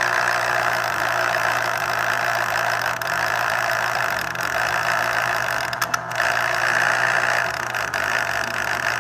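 Electric citrus juicer's motor running steadily, its reamer spinning as an orange half is pressed down onto it, with a brief break about six seconds in.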